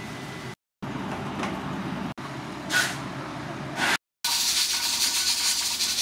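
Hotteok frying in oil on a flat griddle: a steady sizzle with a couple of brief flares, broken twice by short silences. About four seconds in it gives way to a louder, steady hiss.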